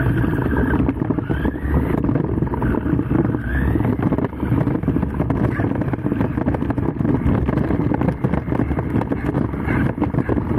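JLB Cheetah 4WD RC buggy driving fast over bumpy grass, heard from the camera mounted on it: a steady rumble with constant rattling and knocking from the chassis.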